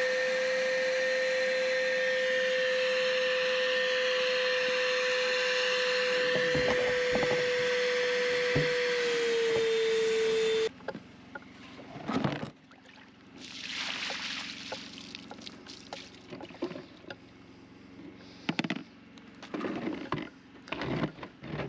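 Wet/dry vacuum cleaner running with a steady whine, sucking water out of an underground electrical conduit to draw out a lost pull rope; its pitch sags slightly before it cuts off suddenly about ten seconds in. Then quieter knocks, clatter and rustling of handling.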